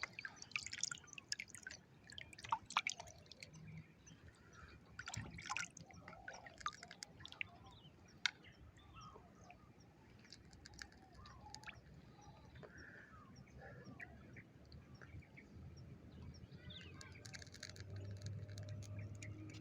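Faint water sounds: small drips, trickles and light splashes in shallow water, with a few scattered bird chirps. A low steady hum comes in near the end.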